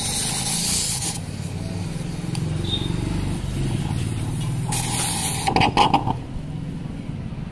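Gas torch burning steadily into a steel pot. Its flame hisses louder twice, near the start and about five seconds in, and there is a short clatter of metal knocks just before six seconds.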